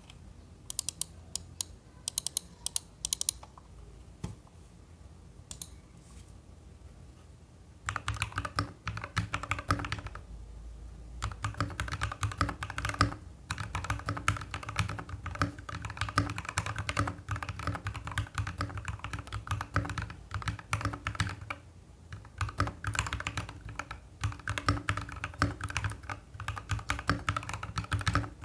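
Typing on a mechanical keyboard fitted with linear switches: a few scattered keystrokes at first, then, about a third of the way in, fast continuous typing broken by a few short pauses.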